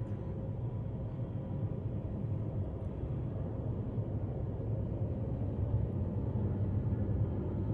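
Low, steady rumble of a distant jet airliner, slowly growing louder, with a faint steady whine over it.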